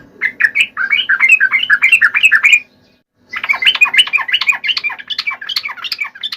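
Sooty-headed bulbul (trucuk) singing: two fast runs of chattering, chirping notes, about six a second, with a short break about halfway.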